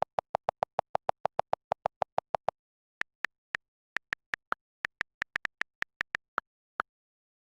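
Electronic beeps: a quick, even run of short low beeps, about seven a second, stops after two and a half seconds. After a brief gap comes an uneven string of higher beeps.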